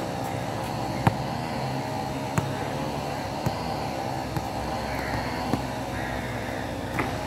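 A basketball knocking on a hard outdoor court, single sharp hits about a second apart (the loudest about a second in), over a steady background hum.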